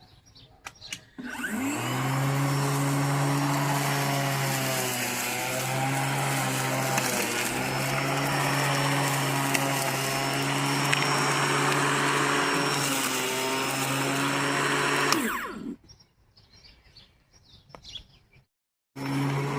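Battery-powered Litheli electric lawnmower starting with a quick rising whine, then running with a steady motor hum and blade whir that sags slightly in pitch a few times as it cuts into piled-up grass. About fifteen seconds in it shuts off and winds down, and it starts up again just before the end.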